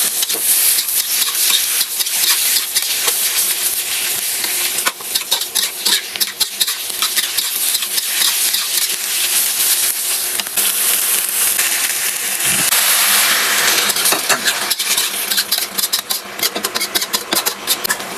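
Food sizzling in a hot pan while being stir-fried, with frequent quick clicks and scrapes of the spatula against the pan.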